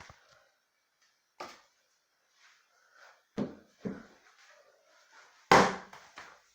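Four short knocks or thumps in a quiet room, the last and loudest about two-thirds of the way through. This is the unexplained noise the listener traces to the bathtub.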